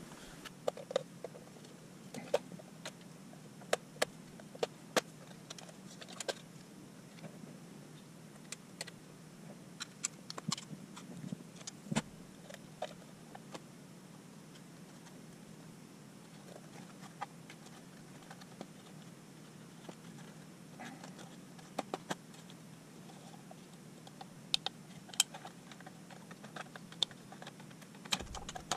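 Scattered plastic clicks and light knocks from a van's instrument cluster housing and circuit board being handled and taken apart, at irregular intervals over a steady low hum.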